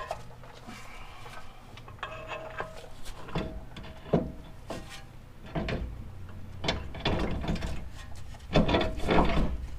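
Metal clanks, knocks and scrapes as a steering knuckle (spindle) is handled and fitted onto the suspension's ball joint. The knocks are scattered and get busier after about halfway, with the loudest cluster near the end.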